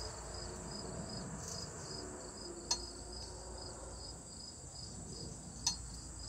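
Crickets chirping in a steady, evenly pulsing high rhythm, with two sharp clicks, one near the middle and one near the end.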